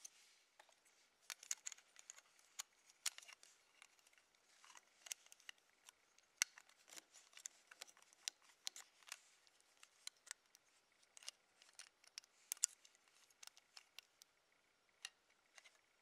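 Small plastic LEGO pieces clicking and tapping as they are handled and pressed together: a string of irregular sharp clicks.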